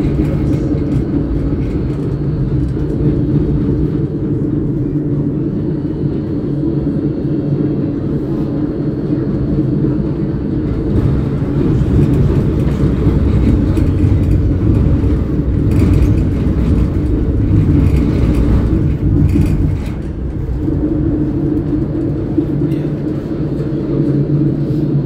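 MVB NGT8D low-floor tram running, a steady electrical hum in several tones over a low rumble. The rumble grows heavier about halfway through, with a few knocks and rattles, then settles back.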